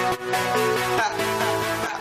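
Electronic background music, its chord changing about a second in.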